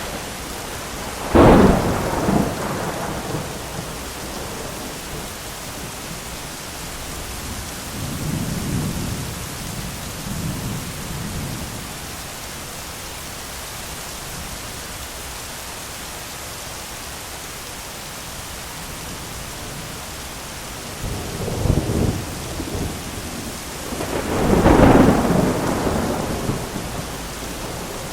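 Thunderstorm: steady heavy rain with thunder. A sharp thunderclap comes about a second and a half in and rumbles away, a softer distant rumble follows a few seconds later, and near the end a crack builds into a long loud rumble.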